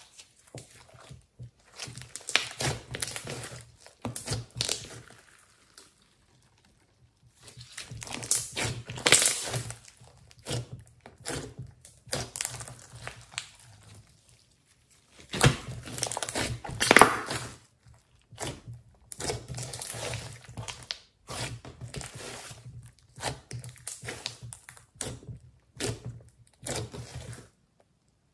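Hands kneading, pressing and stretching a large lump of thick, glossy mixed slime, making wet, sticky clicks and small pops in irregular runs. There are a couple of brief pauses, and the loudest run comes a little past halfway.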